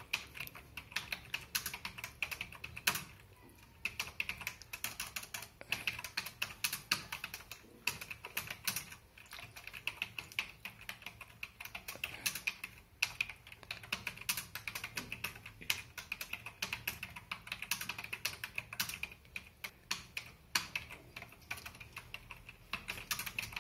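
Fast touch-typing on a computer keyboard: a quick, uneven stream of key clicks with a couple of brief pauses.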